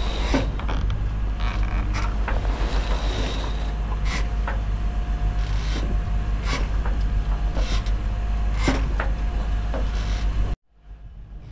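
Scraping, rubbing and knocking of a sail and its gear being hauled down by hand on a sailboat's deck, over a steady low rumble. The sound cuts off abruptly near the end.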